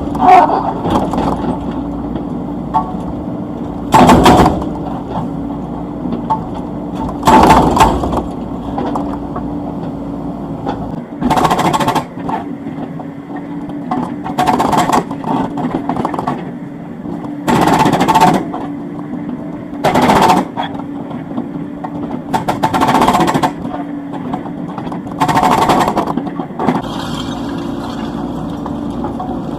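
Komatsu PC78US excavator's diesel engine running steadily while its hydraulic breaker hammers in short bursts of about a second, eight times, roughly every three seconds.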